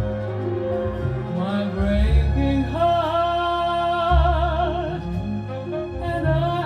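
Music from a slow ballad between sung lines: a lead melody note with wide vibrato over a heavy, steady bass.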